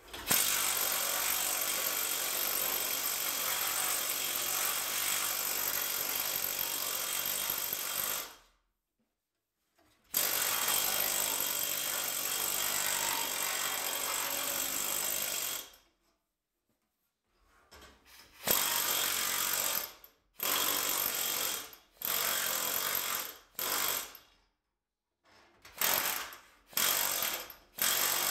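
Magnum air-powered planishing hammer running on a sheet-steel repair panel: one long run of about eight seconds, a second of about six, then a string of short bursts about a second each as the panel is worked.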